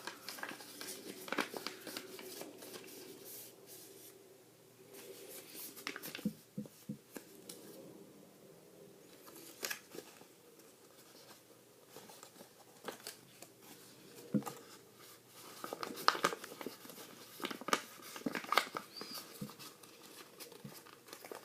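A sheet of origami paper being folded and creased by hand: irregular rustling and crinkling with short, sharp creasing clicks, busier near the end.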